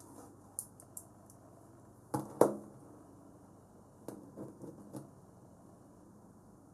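Small neodymium magnet balls (buckyballs) clicking as they snap together while a pentagonal panel is assembled by hand. A few light clicks, a loud double snap about two seconds in, then a quick run of smaller clicks between four and five seconds.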